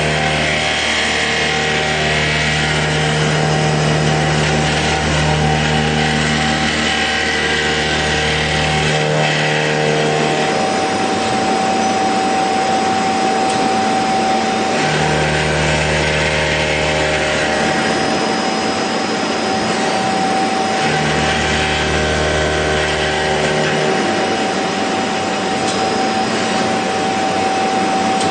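CNC machine running with a steady whine and one constant tone. A deeper hum cuts in and out three times, for a few seconds each time.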